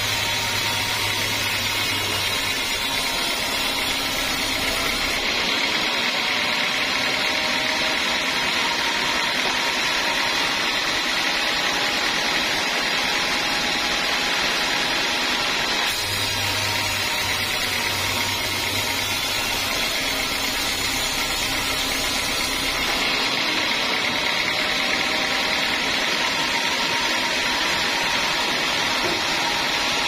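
Bandsaw mill blade sawing lengthwise through a very hard teak log: a steady, loud sawing noise with a thin constant tone. A low hum comes in at the start and again about halfway through.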